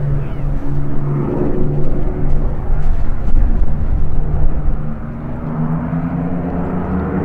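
Avro Lancaster's four Rolls-Royce Merlin V12 piston engines and propellers running in a steady drone as the bomber flies overhead, the engine note rising slightly about five seconds in.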